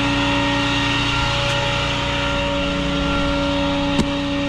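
Tow truck running at idle: a steady hum of several held tones. A single sharp knock comes near the end.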